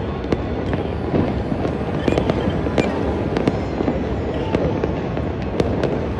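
Many distant fireworks going off across a city at once: a continuous rumble of bursts with sharp cracks and pops scattered irregularly, several a second.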